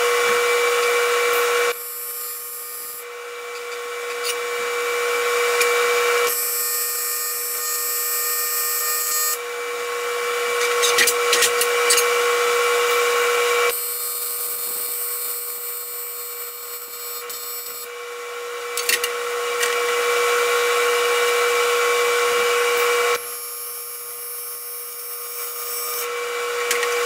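TIG welding arc on aluminium, a steady buzzing hiss that stops, restarts and changes in loudness several times as the bead is laid around the fittings. A constant hum runs underneath.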